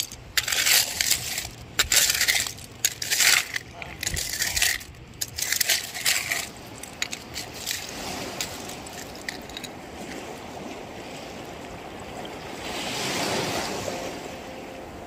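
Loose seashells clinking and clattering in quick irregular bursts as they are pushed aside and sorted by hand in a shell pile, for about the first half. After that a steady background rush remains, swelling briefly near the end.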